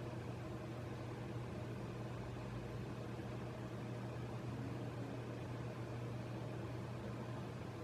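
Steady low hum with an even hiss underneath, unchanging throughout: constant background noise such as a fan or electrical hum.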